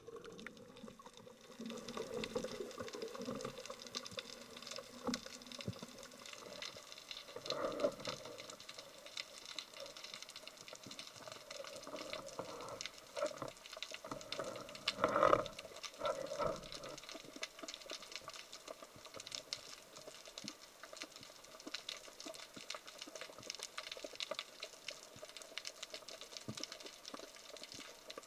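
Underwater ambience picked up by a diving camera: a steady dense crackle of tiny clicks, with a few louder muffled surges, the strongest about 15 seconds in.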